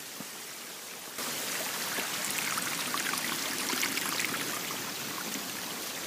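Steady rushing water from a waterfall, an even hiss that gets louder about a second in.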